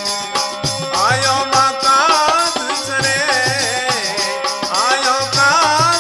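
Rajasthani devotional folk music, a chirja to Karni Mata: a melody with sliding, ornamented notes over a steady drum beat and light percussion.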